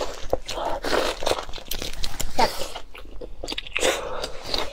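Close-miked biting and chewing of a braised tripe bundle, with irregular crunching clicks and mouth noises.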